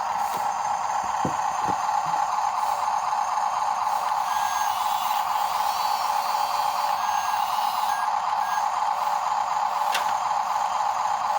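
Small electric motor and gearbox of a radio-controlled model whining steadily at a high pitch, with a few light clicks.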